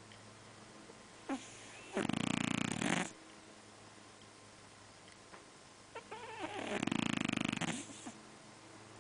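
A fat house cat snoring in its sleep: two snores about four seconds apart, the first about a second long and the second nearly two seconds.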